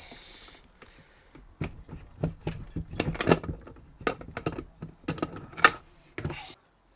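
Metal gearbox parts being handled and set down: an irregular series of sharp knocks and clicks, thickest in the middle.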